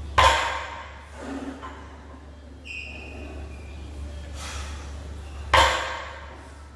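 Loaded barbell with Technogym weight plates set down hard on the gym floor twice, about five seconds apart, between deadlift reps: each a sharp thud with a short ring. Between the two touchdowns the lifter's forceful breaths can be heard.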